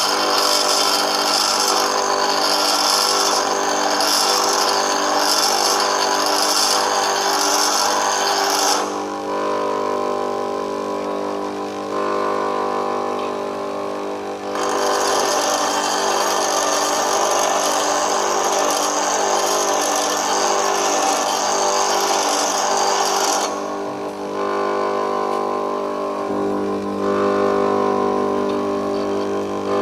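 Bench grinder running with a steady hum while an HSS lathe tool bit is held against the grinding wheel, giving a harsh grinding hiss. The grinding comes in three long spells, the first about nine seconds long, with short pauses where only the motor hum remains.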